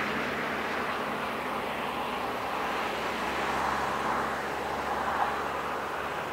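Boeing 737-500's CFM56-3 turbofan engines running at taxi idle, a steady rush of jet noise that holds level throughout.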